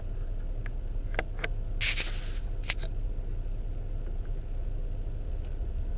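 Low steady vehicle rumble, with a few sharp clicks and a short rustling scrape about two seconds in.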